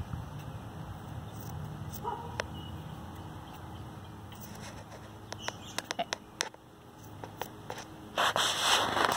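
Electric dog clippers humming low while trimming ear hair, fading out after the first few seconds. A string of small sharp clicks follows, then a burst of rustling near the end.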